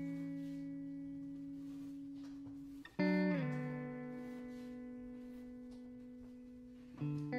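Soundtrack music: slow guitar chords struck and left to ring and fade, with a new chord about three seconds in and another near the end.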